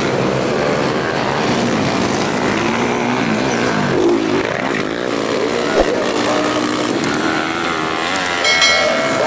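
Several motocross dirt bike engines revving up and down as the bikes race round the track, their pitches rising and falling and overlapping.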